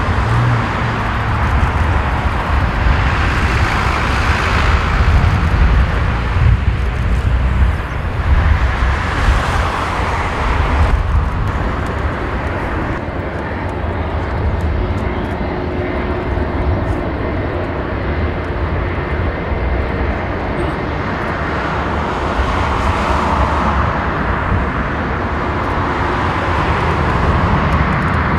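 Jet engine noise from an Airbus A380-841's four Rolls-Royce Trent 900 turbofans: a loud, even roar with deep rumble. It swells and fades a few times in the first ten seconds, then runs steadier and a little quieter.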